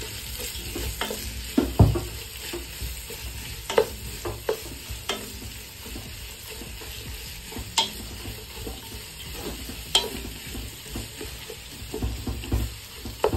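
Sliced onions sizzling in hot oil in a nonstick pot as a spatula stirs them, with scattered sharp knocks of the spatula against the pan. The onions are being sautéed with green chillies, ginger and garlic until they soften.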